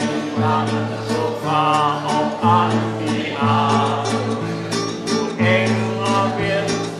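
A mixed group of men and women singing a song together, accompanied by two acoustic guitars.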